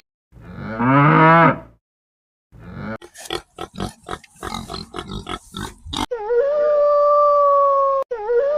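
Farm animal calls one after another: a loud pitched call about a second long, then a run of short, quick sounds, then a long steady higher call that dips briefly near the end.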